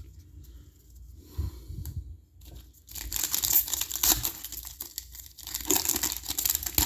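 A trading-card pack wrapper being torn open and crinkled, starting about three seconds in, after a couple of soft knocks from handling.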